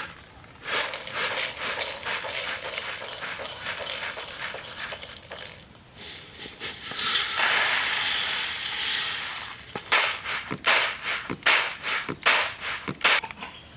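Gram seeds (chickpeas) clattering on a woven bamboo winnowing tray as it is jerked and tossed, about three tosses a second. About seven seconds in comes a steady rushing rattle as seeds are poured from a metal pot onto the tray, then a few more separate tosses.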